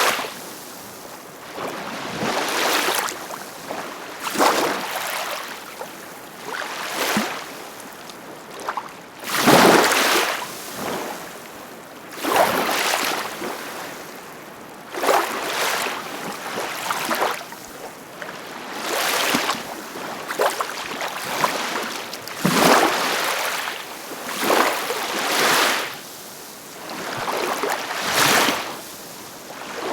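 Ocean waves breaking and washing up the shore, one surge every two to three seconds. Two of them, about a third of the way in and again past two-thirds, are louder than the rest.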